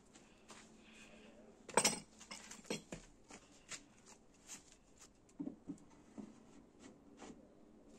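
Pieces of a wooden box being handled and set down: scattered light knocks and clinks, the loudest clatter about two seconds in.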